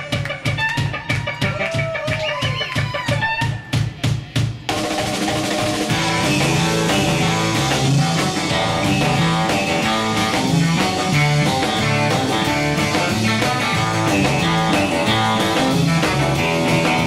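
Live instrumental surf rock: a drum beat alone for about five seconds, then the full band crashes in with twangy electric guitars and bass over the drums.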